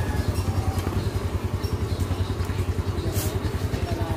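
A small engine running steadily at idle, with a fast, even low pulse.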